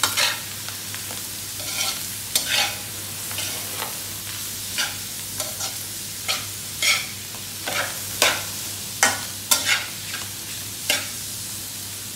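Chopped pork, mushrooms, corn and carrots sizzling in a metal frying pan while a spatula stirs them, scraping and clacking against the pan in about a dozen irregular strokes over a steady frying hiss.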